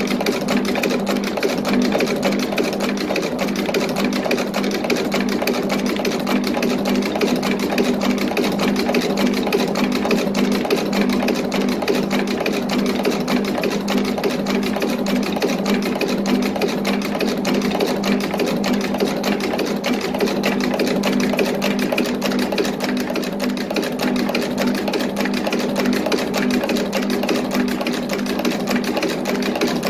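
Box chain making machine running steadily: a rapid, even mechanical clatter from its forming tooling over a steady low hum.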